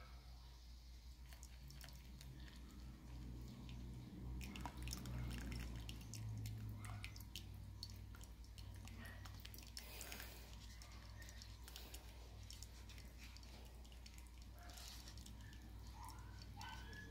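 Faint pouring and dripping: a thin stream of hot water poured onto a drip coffee filter bag hung on a glass mug, with coffee dripping and trickling into the mug as many small scattered ticks, busiest a few seconds in. A low steady hum sits underneath.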